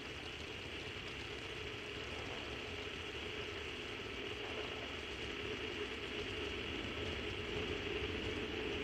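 Soyuz-FG rocket's engines during ascent: a steady rushing rumble with a faint low hum, growing slightly louder toward the end.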